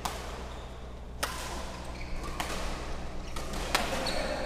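Badminton rackets striking a shuttlecock in a doubles rally: four sharp hits, roughly one every 1.2 seconds, the third fainter.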